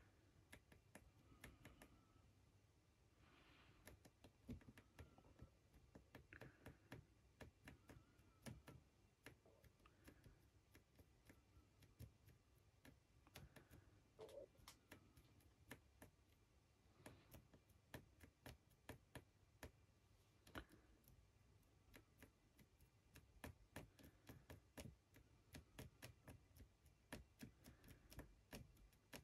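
Near silence: room tone with many faint, irregular little ticks and taps, a few a second.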